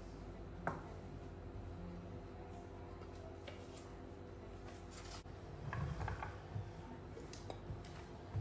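Light clicks and knocks of small kitchen items such as a glass cup being lifted and set down on a countertop, with a cloth rubbing the surface, over a faint steady hum. The sharpest click comes about a second in; more light knocks and rubbing follow in the second half.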